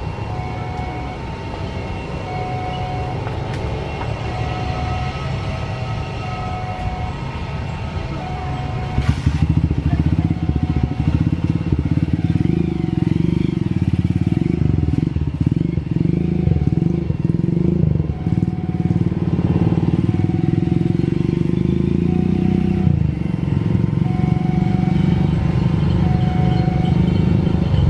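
Airbus A320's jet engines running on the runway, mixed with motorcycle engines on the road close by. The low rumble grows much louder about nine seconds in and stays loud.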